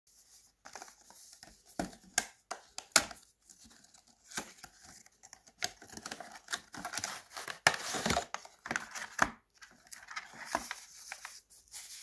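Cardboard packaging being handled and opened by hand: a string of sharp taps and clicks as the box, its card insert and flaps are pulled and folded, with papery rustling and crinkling between them. The sharpest click comes about three seconds in, and the rustling is thickest around eight seconds in.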